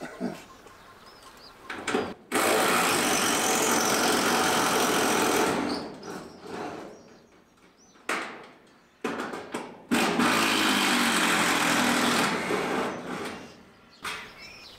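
Power drill with a driver bit running in two long runs of about three seconds each, with a short burst between, backing out the fixings of a carport's corrugated roof sheets.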